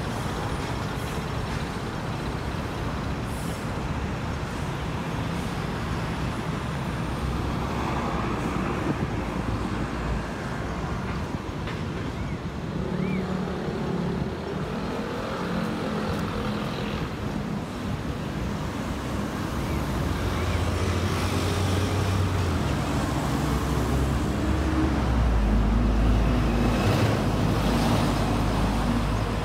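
Road traffic on an adjacent city street: a steady wash of passing cars and buses. A low engine rumble grows louder in the second half as a heavy vehicle goes by.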